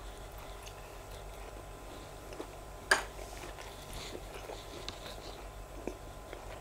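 Close-up chewing of a grilled sausage: soft wet mouth clicks and smacks, with one sharp smack about three seconds in, over a low steady hum.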